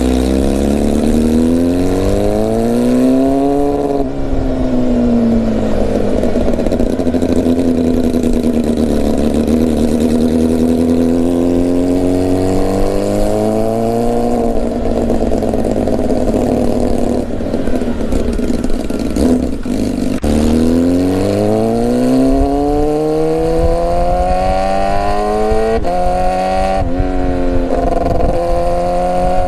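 Yamaha R15 V3's 155 cc single-cylinder engine under acceleration, its pitch rising through the revs and dropping at each gear change, with a long pull in the last third and two quick shifts near the end. The title likens its sound to a Kawasaki H2.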